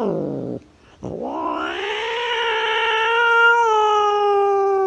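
Domestic cat yowling: a long drawn-out call drops away just after the start, and a second long yowl begins about a second in, rises, holds steady and starts to fall at the end.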